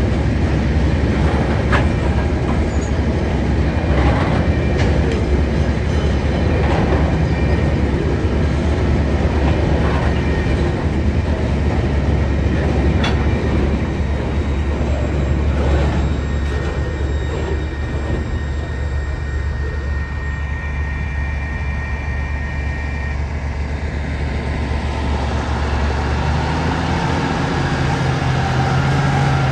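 Freight train's coal hopper wagons rolling past, with a steady low rumble and scattered clanks of wheels over rail joints, and a thin wheel squeal about halfway through. Near the end the rumble drops away and a road vehicle's engine comes in.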